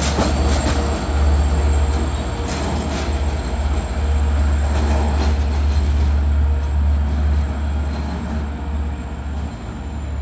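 Long Island Rail Road DE30AC diesel locomotive at the rear of a departing bilevel push-pull train, passing close and then drawing away. Wheels click over the rail joints in the first few seconds, a thin high whine carries on throughout, and the sound fades toward the end.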